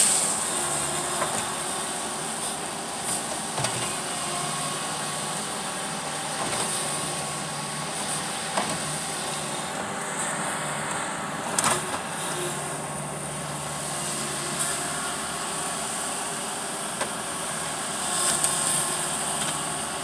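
Diesel engine of a Bobcat T190 compact track loader running steadily as it pushes a tree over, with a few short knocks and cracks.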